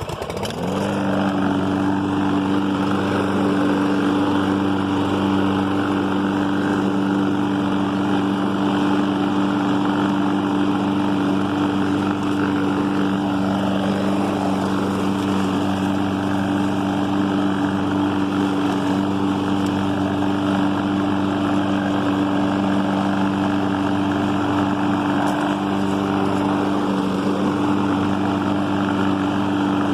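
Gas walk-behind lawn mower engine catching and coming up to speed within the first second, then running steadily at full speed.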